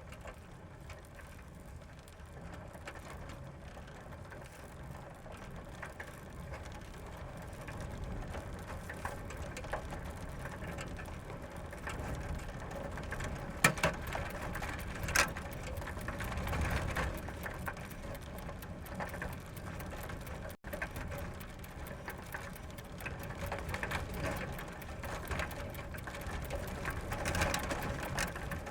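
Bicycle ridden fast on gravel: tyres crunching over loose stones with the bike's chain and gears rattling, steady and slowly growing louder. Two sharp clicks come about halfway through.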